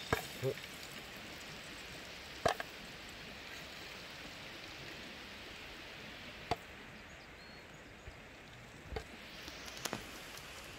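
Popcorn kernels popping one at a time inside a lidded pot of oil over a fire: about six sharp pops spread across several seconds, over a steady hiss.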